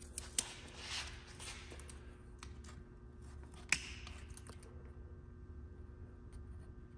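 Steel feeler gauge blades clicking and scraping against the gap in a K-series transmission case while the differential shim clearance is measured. Light clicks and rustling in the first two seconds, then one sharp metallic click a little under four seconds in.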